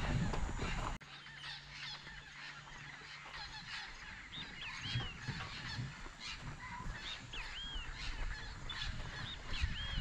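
A loud low rumble cuts off abruptly about a second in. After that, many birds call in a dense natural chorus, one of them repeating a short arched whistle about three times.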